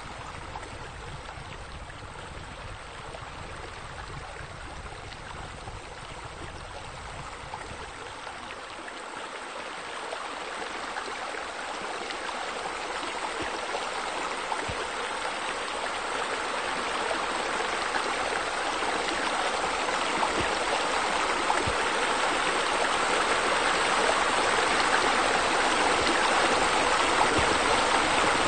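Running, splashing water, growing steadily louder, with a low rumble under it for the first few seconds that then drops away.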